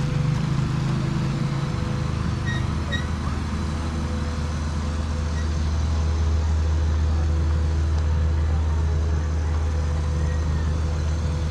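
An engine running steadily at low revs, settling to a lower, even hum about two seconds in.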